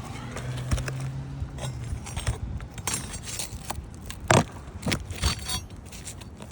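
Scattered scrapes, rustles and sharp knocks of hand work on an asphalt shingle roof as shingles and tools are handled, with the loudest knock a little past the middle. A low steady hum sounds under the first two seconds.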